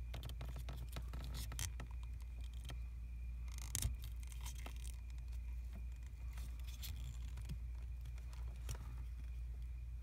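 Faint scattered clicks and short scrapes of a car's ignition wiring harness and plastic plug connectors being handled, one slightly louder click about four seconds in, over a steady low hum.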